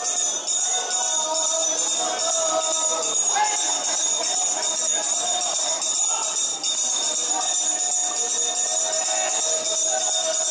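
Auction hand bell rung continuously with a rapid, even shake, the signal that opens a tuna auction.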